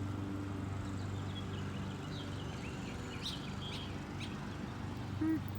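A small bird chirping: a string of short, high chirps through the middle, over a steady low hum.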